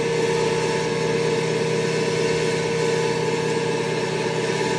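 A machine's motor running steadily nearby, a constant hum with an unchanging pitch.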